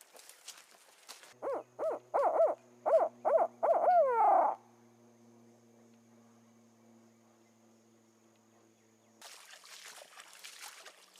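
Owl hooting: a rhythmic run of about eight loud hoots, the last one drawn out and falling in pitch.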